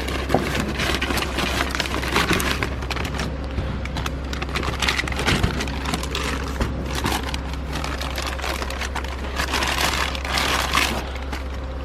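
Packaging of new car parts being unwrapped and handled: irregular crinkling and rustling with small crackles and scrapes, over a steady low hum.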